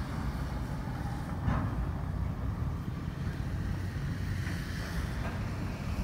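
Case backhoe loader's diesel engine running steadily as it pushes snow with a plow box, with wind buffeting the microphone; a brief louder noise about a second and a half in.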